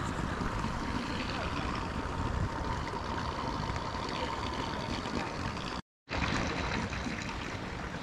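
Steady outdoor noise of wind buffeting the microphone and water trickling, cutting out to silence for a moment about six seconds in.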